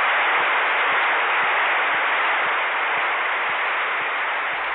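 Large crowd applauding, a steady even wash of clapping, heard in an old recording with no high end.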